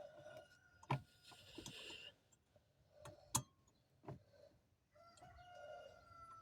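A few sharp, faint clicks and knocks, a second or two apart, from a replacement headlight bulb and its plastic socket being worked into the housing in a tight engine bay. Near the end a faint drawn-out tone falls slightly in pitch.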